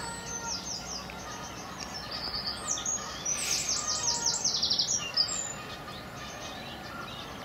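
A small songbird singing fast runs of short, high, repeated notes, stopping a little over five seconds in.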